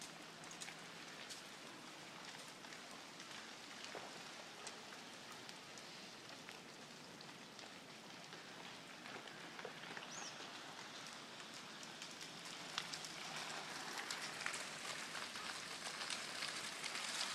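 Melting snow dropping from distant trees: a dense, rain-like patter of countless small drops, growing louder about three-quarters of the way in.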